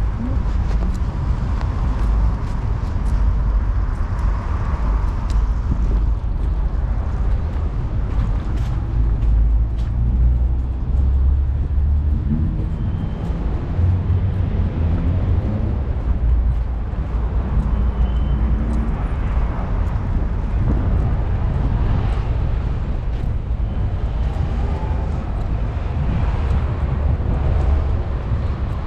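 Urban street ambience with cars passing: engines and tyres over a constant low rumble, with engine pitch rising and falling as vehicles go by.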